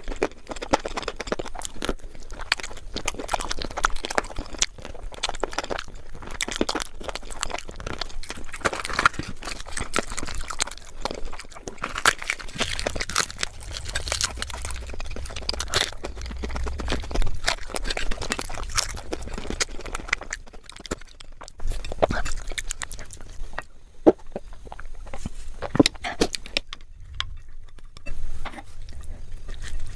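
Close-miked wet chewing and mouth smacks of someone eating curry, puri and rice by hand, a quick irregular patter of small clicks, with the squelch of fingers mixing curry and rice on a plate.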